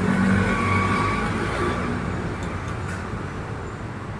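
Motor vehicle engine rumbling past and fading away as traffic noise.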